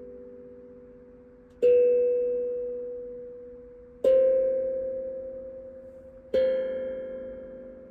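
Tuned metal percussion struck three times, slowly, about two seconds apart, each note ringing out and fading gradually at much the same pitch.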